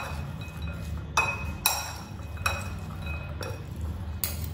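Metal spoons tossing a moist sprouts-and-paneer salad in a glass mixing bowl: a soft rustle of the salad, with a few sharp ringing clinks as the spoons strike the glass.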